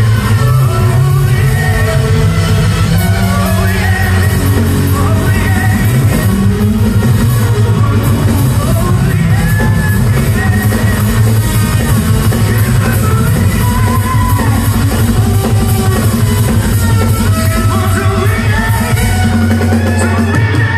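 Live rock band playing through a PA: a male lead vocal over electric guitars and a drum kit. The deepest bass thins out near the end.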